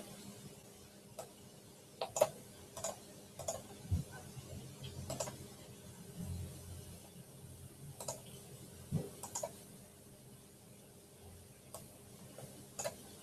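Sparse, irregular clicks and taps, with a couple of soft thumps, from a computer keyboard and mouse being used near the microphone, over a faint steady hum.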